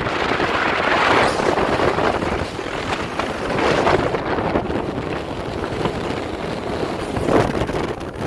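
Gusting wind buffeting the phone microphone over the rush of a bass boat running across choppy, white-capped water, its outboard motor under way. The noise swells and dips in gusts.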